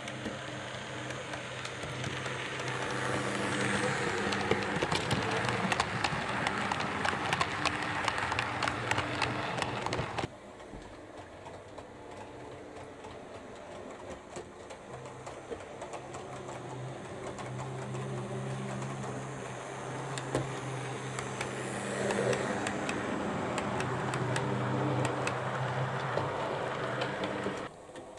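OO gauge Oxford Rail GER N7 model tank locomotive and its coaches running on a model railway: the electric motor gives a steady whirring hum and the wheels click and rattle over the track, growing louder as the train comes closer. The sound stops abruptly about ten seconds in, then builds again and stops abruptly near the end.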